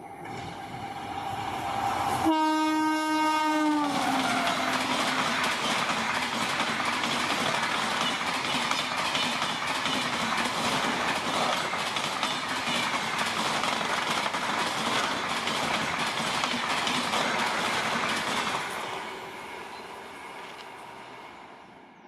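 Electric-hauled express train passing at high speed. Its horn sounds for about a second and a half and drops in pitch as the locomotive goes by, then the coaches rush past with rapid clickety-clack of wheels on rail joints, fading away near the end.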